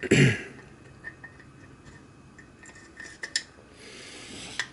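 Small brass parts of a model steam engine clinking lightly as the piston and cylinder are handled and fitted onto the frame. A brief louder rustle comes right at the start, then a few scattered light clicks, and a soft rubbing sound near the end.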